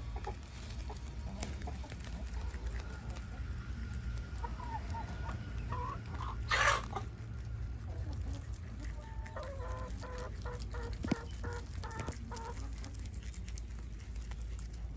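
Domestic hen clucking: a few scattered clucks, then a quick run of repeated clucks from about nine to twelve seconds in, with a brief loud burst of noise about six and a half seconds in. Underneath, the soft crisp clicks of rabbits chewing leafy greens, over a steady low rumble.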